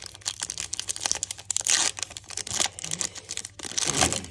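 Foil wrapper of an Upper Deck hockey card pack crinkling and tearing as it is slit open and the cards are pulled out, with louder crackling about halfway through and again near the end.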